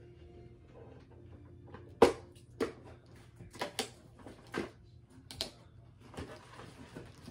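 Cardboard and plastic packaging of a doll box being handled while the doll is worked free: one sharp knock about two seconds in, then a run of shorter snaps and scrapes, and a rustling near the end.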